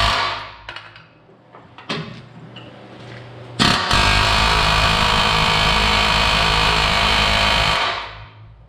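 Pneumatic air hammer (air chisel) hammering against a rusty steel truck frame to drive out bolts. A burst stops just after the start, two sharp knocks follow, then the tool runs steadily for about four seconds from about three and a half seconds in and cuts off near the end.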